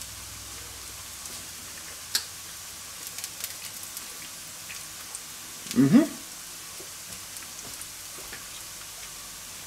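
Sliced bratwurst sizzling steadily in a frying pan, with scattered small crackles. About six seconds in, a short rising sound from a person's voice is the loudest thing heard.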